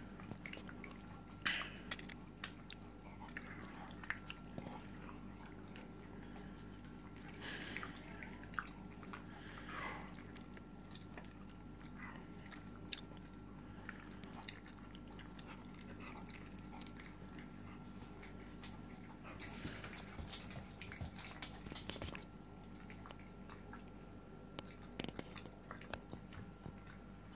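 A dog chewing a sticky mouthful of toffee, its jaws working with scattered wet smacks and clicks.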